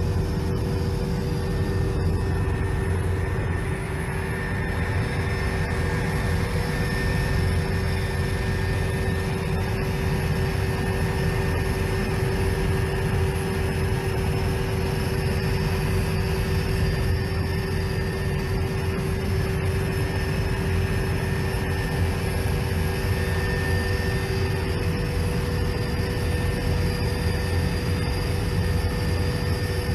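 Helicopter cabin noise heard from inside: the engine and rotor make a steady low drone, with a few held tones over it and a faint high whine.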